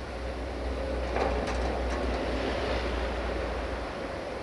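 Siemens Desiro diesel multiple unit approaching slowly, a steady low rumble, with a brief clatter about a second in.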